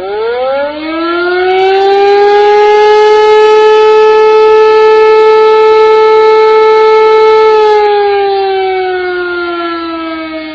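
Civil defense siren winding up over about two seconds to a steady wail, holding it, then slowly winding down from about seven and a half seconds in.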